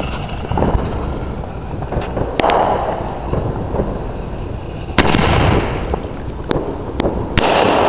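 Consumer firework mortar shell fired from its tube: a launch thump near the start, then a string of sharp bangs, the loudest about five seconds in and again near the end, each trailing into a rumbling wash of noise.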